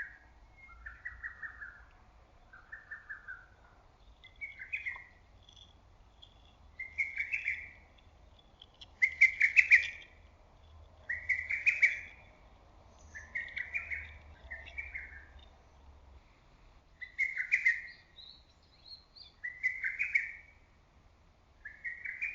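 Lesser cuckoo (hototogisu) singing, its loud whistled notes repeating in quick phrases every second or two, with fainter high notes from other birds in between.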